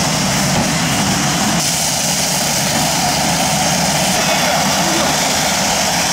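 Steady loud rushing hiss of a firefighting foam barrel (Purga-5) spraying a jet of air-foam, over the low drone of an engine running.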